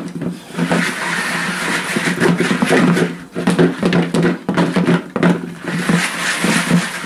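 Chicken nuggets being shaken in a lidded plastic food container to coat them in hot sauce: a dense, irregular run of rattling knocks and sloshing.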